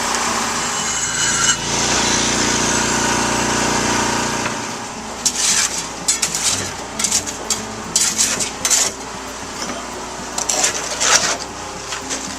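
A small engine runs steadily and cuts out about four and a half seconds in. Irregular scraping or rubbing strokes of hand work on wood or concrete follow.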